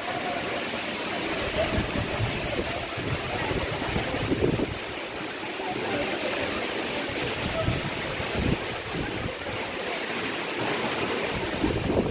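Steady rush of a waterfall's falling water, with faint voices of people talking beneath it.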